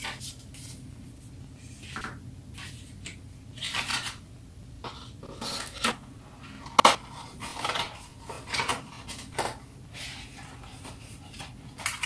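Hands handling a phone box and its accessories: irregular rustling of packaging with light plastic clicks and taps, one sharp click about seven seconds in.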